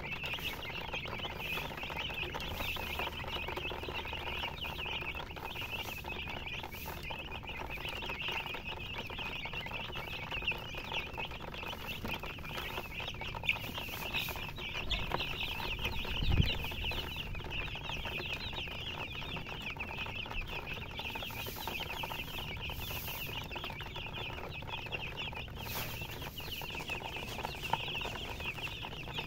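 A large crowd of baby chicks peeping continuously, many short high cheeps overlapping into a steady chorus. A single dull thump about halfway through.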